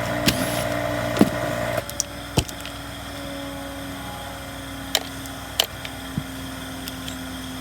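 Scattered sharp clicks and light knocks of tools and parts being handled on a chainsaw under repair, about six in all. They sit over a steady background hum that drops to a quieter, lower hum about two seconds in.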